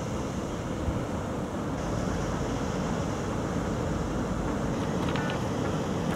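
Steady wind buffeting the microphone, a rumbling noise with no clear tone.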